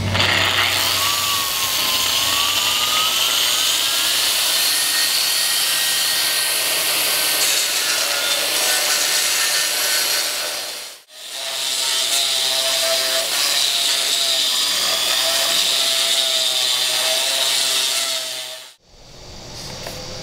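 Concrete grinder with a 125 mm diamond cup wheel and built-in dust turbine grinding concrete: a loud, dense grinding with a motor whine that shifts in pitch. It cuts off abruptly about eleven seconds in and again near the end, continuing more quietly afterwards.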